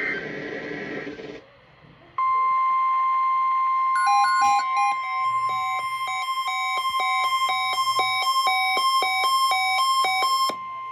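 Weather-radio alert signalling: a burst of warbling digital data tones typical of a SAME header ends, and after a short gap the steady 1050 Hz warning alarm tone sounds for about nine seconds. From about four seconds in, an electronic alarm beeps rapidly over the tone, about three beeps a second.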